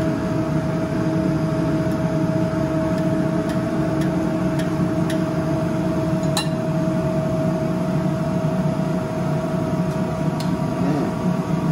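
Steady mechanical hum with a constant mid-pitched tone, and a few light clicks of a knife and fork against a china plate as chicken is cut.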